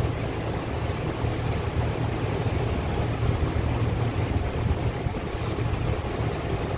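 Steady low rumbling and hissing background noise, with no distinct knocks or clicks, like a shop fan or air blowing across the microphone.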